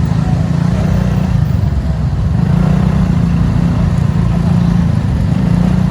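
Road traffic in a jam: vehicle engines running at low speed, heard as a steady low hum.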